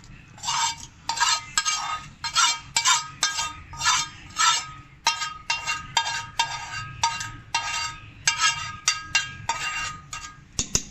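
Metal spoon scraping and clinking against a metal pan in quick repeated strokes, about three a second, each with a short ringing tone: the fried tempering being scraped out of its pan into the sambar.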